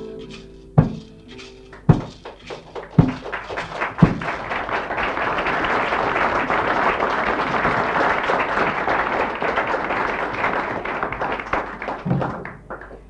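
A song ends on a few sharp hits about a second apart, then an audience applauds for several seconds, the applause fading away near the end.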